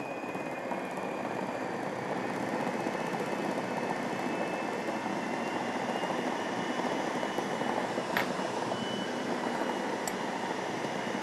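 Electric food processor motor running steadily, its blade mixing bread flour and sourdough starter into a rustic bread dough as liquid is poured down the feed tube. A short sharp tap about eight seconds in.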